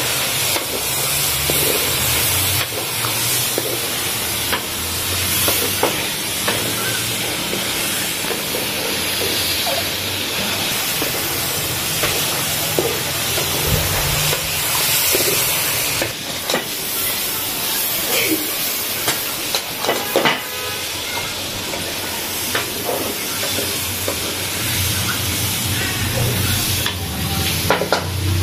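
Chicken pieces and sliced green chillies sizzling in hot oil in a metal pot, with a spatula stirring them and clicking against the pot now and then.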